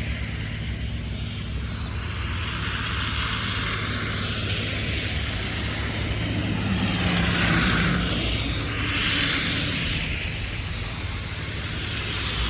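Steady outdoor traffic noise with a low engine hum and a hiss that swells and fades. About seven seconds in, a single vehicle engine briefly stands out.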